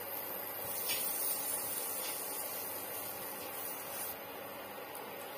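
Butter sizzling in a frying pan as pav bread rolls toast, a steady hiss that eases off after about four seconds, with a couple of faint taps.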